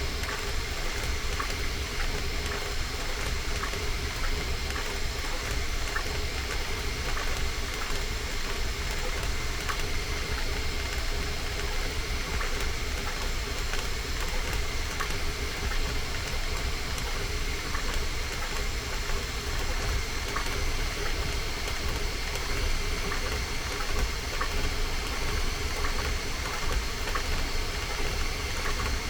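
Bambu Lab A1 Mini 3D printer running a print: a steady hum of fans and motors with a few steady tones and frequent light ticks as the print head moves.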